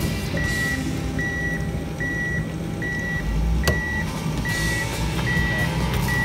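Snowcat backing up: its reversing alarm beeps in an even rhythm, a little more than once a second, over the steady rumble of its engine. One sharp click about halfway through.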